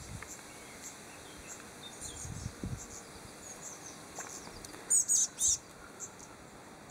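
Small songbird calling: scattered thin, high chirps, then three loud, quick notes that sweep downward about five seconds in.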